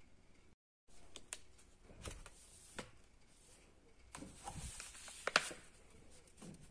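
Small handling sounds: a scattered series of sharp clicks and taps with soft rustling between them, the loudest tap about five seconds in.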